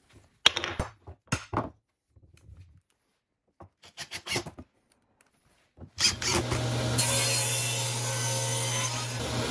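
A few sharp knocks, then short bursts of a cordless drill driving a screw into a wood block. About six seconds in a table saw starts and runs steadily, cutting through a wood block fed on a sled jig.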